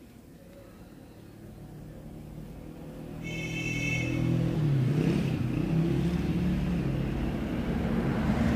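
A motor vehicle's engine running nearby, steadily getting louder and shifting in pitch, with a brief high-pitched tone about three seconds in.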